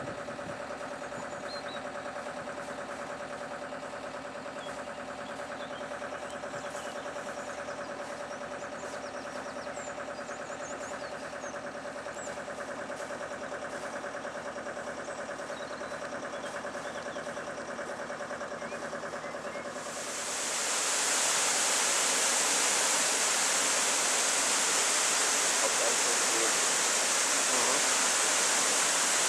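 A boat's engine idling steadily in a lock chamber. About two-thirds of the way in, the sluices of the hand-operated upper lock gate open and water gushes into the lock with a loud, steady rushing that drowns out the engine: the lock is filling.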